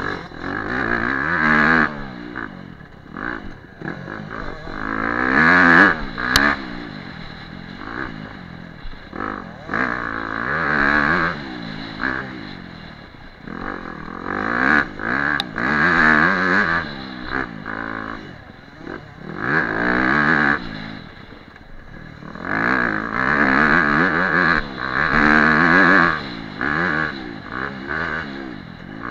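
Dirt bike engine heard close up from the bike, revving up and falling back over and over as the rider accelerates, shifts and slows over a rough track. A couple of sharp clicks cut through the engine sound.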